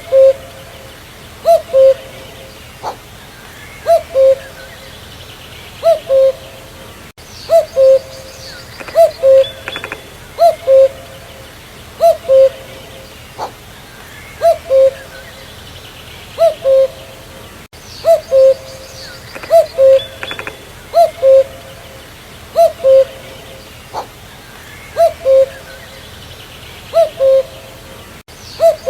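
Common cuckoo (Cuculus canorus) male calling its two-note "cu-coo", a higher note dropping to a lower one, repeated over and over about every one and a half to two seconds. Faint chirps of other birds sound behind it.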